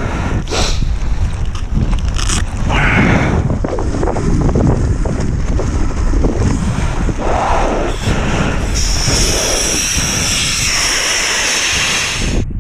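Strong wind buffeting the microphone as a loud, uneven low rumble, with knocks and rustles mixed in; a steady high hiss joins in about three-quarters of the way through.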